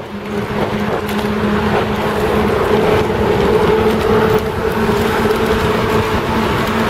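Steady rolling rumble of fast travel along a paved path, with a constant low hum and a higher hum above it that fades near the end.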